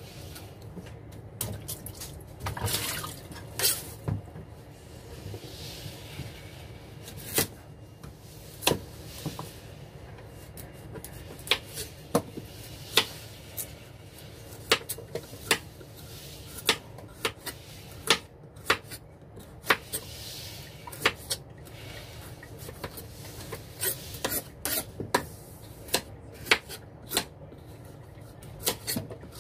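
Kitchen knife cutting squash on a wooden cutting board: irregular sharp knocks of the blade hitting the board, with some scraping between them.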